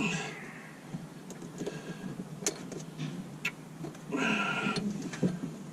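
Scattered small clicks and taps of hand tools and Allen keys being handled, with a brief high-pitched sound about four seconds in.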